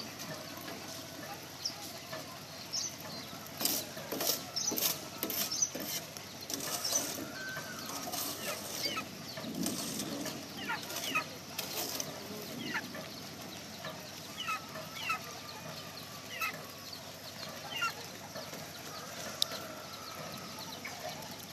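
Chickens clucking in short, irregular calls, with a quick run of sharp knocks a few seconds in.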